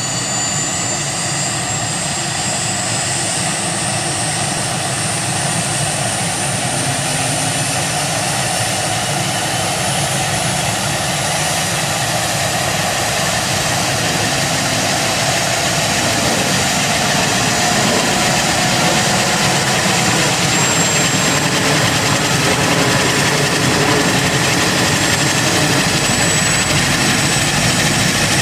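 Airbus H225 Super Puma helicopter starting up: its twin turboshaft engines whine with high tones gliding slowly upward as the main rotor begins turning, the sound growing gradually louder.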